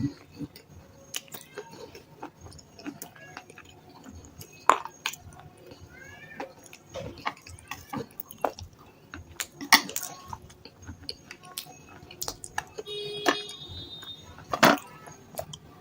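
Someone biting and chewing red slate stone: irregular crisp crunches and snaps, with a few sharp, louder cracks among the softer chewing.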